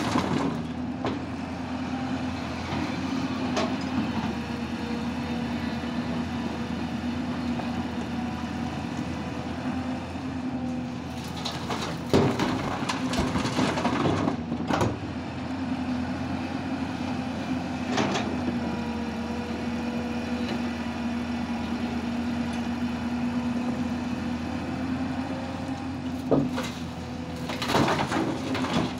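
Hydraulic excavator's diesel engine running steadily under load, with a constant hydraulic whine. Several sharp knocks and clatters come from the bucket working the rock. A louder rush of soil and stones pours from the bucket into a steel dump-truck bed near the end.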